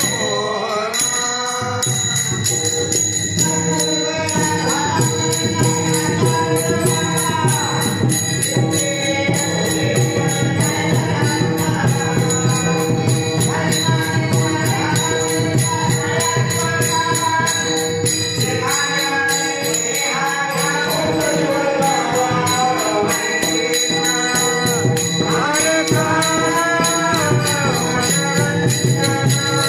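Marathi bhajan: voices singing a devotional melody in long phrases, with small metal hand cymbals struck in a fast, steady rhythm and a steady drone underneath.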